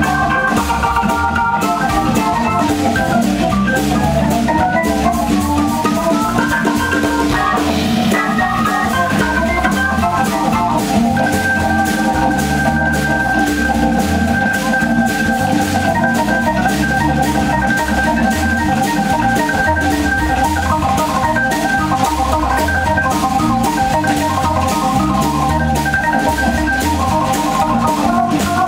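Hammond organ played live in a jazz style: sustained chords with a high note held for about ten seconds midway, over a moving bass line.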